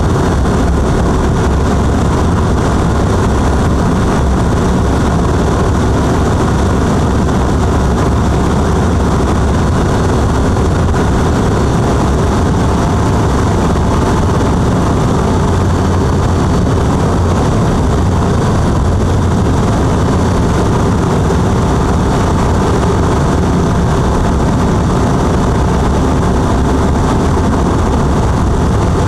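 Light single-engine propeller aircraft in cruise flight, heard from inside the cockpit: the engine and propeller run steadily, with airflow noise, loud and unchanging throughout.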